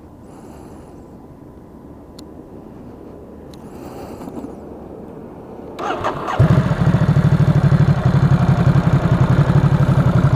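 Stock Ducati SuperSport S's 937 cc L-twin on a cold start: the starter cranks briefly about six seconds in, then the engine catches and settles into a loud, lumpy idle with an even pulse.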